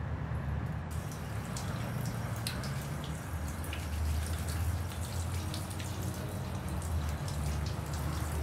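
Water running from a tap into a bathroom sink, with scattered drips and splashes, coming in about a second in over a steady low hum.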